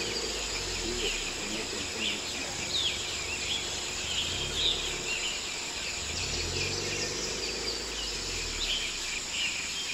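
Forest ambience: a steady high drone of insects with frequent short bird chirps, over a low rumble.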